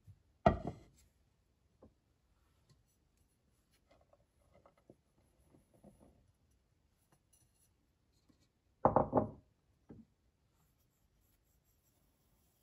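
A white ceramic pot set down on a wooden table with a knock that rings briefly, about half a second in. Flour then slides from a bowl into the pot with a faint soft rustle, and near nine seconds a second clatter of crockery knocks on the table, followed by a small tap.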